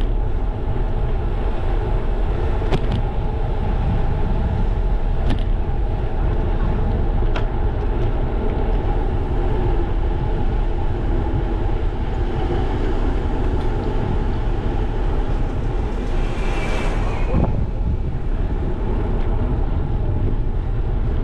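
Steady rumble of wind buffeting the microphone of a bicycle-mounted action camera as the bike rolls along a paved street, with tyre and road noise and a few light clicks. Late on, a brief hiss swells and fades.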